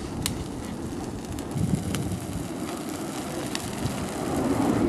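Burning tyre's flames giving a steady rushing noise, with a few sharp crackles and wind on the microphone.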